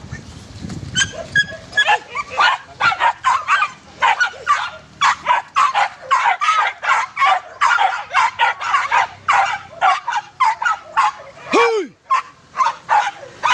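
Pack of hunting dogs yelping in quick, excited, high-pitched yips, several a second, as they are let loose to chase wild boar.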